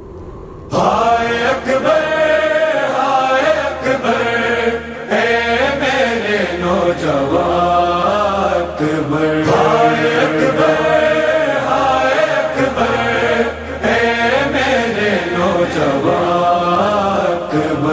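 Male voice chanting a noha, a mournful Urdu lament for Muharram, in long, slowly gliding sung lines that begin about a second in, over a steady low hum.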